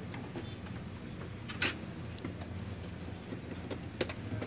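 Clicks and knocks of plastic printer parts and connectors being handled during disassembly of a Brother DCP-T700 inkjet printer: a sharp click about a second and a half in and another near the end, over a steady low hum.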